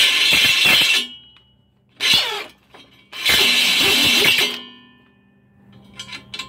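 Cordless drill spinning a die grinder bit in a hole in steel bed rail, grinding the hole bigger in three bursts: about a second, then a short half-second, then about a second and a half. A few light metallic clicks follow near the end as a bolt is tried in the hole.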